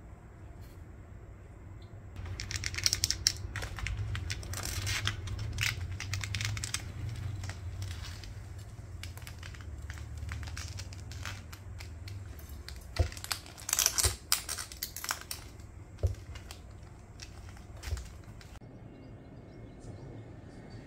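A turtle's claws scratching and scraping on tatami matting as it crawls out from under a curtain, with fabric rustling. It comes in two bouts of scratching, the second with a few sharp knocks.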